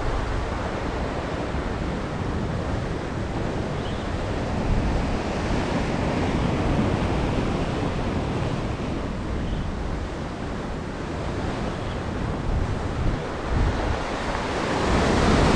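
Ocean surf washing against the shore, a steady rush of breaking water with wind buffeting the microphone; the wash swells louder near the end.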